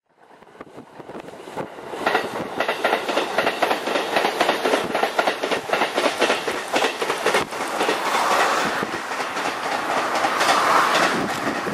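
E531 series electric train running past, its wheels clicking quickly and repeatedly over rail joints as the sound fades in. From about seven and a half seconds the clicking gives way to a steadier rushing noise as the train draws away.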